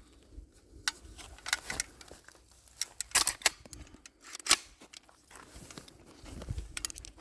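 Scattered metallic clicks and clacks of an Auto-Ordnance Thompson M1 submachine gun being handled to clear a jam, with the loudest clacks about three seconds in and another about a second later.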